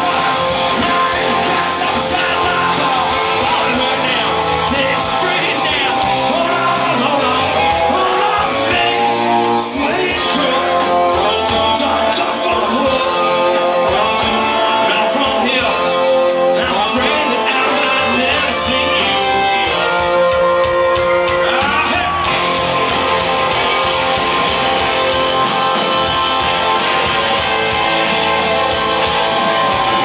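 Live rock band playing loudly and steadily: electric guitars, bass, drums and keyboards, with a sung vocal over them.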